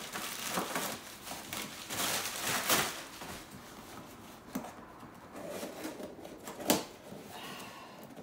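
Plastic FedEx Pak mailer rustling and crinkling as it is pulled open and a small cardboard box is drawn out, followed by quieter handling of the box with one sharp knock about two-thirds of the way through.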